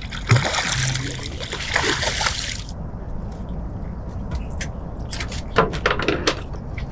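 Water splashing hard for almost three seconds as a hooked sail catfish thrashes at the surface, followed by a few sharp knocks or clicks.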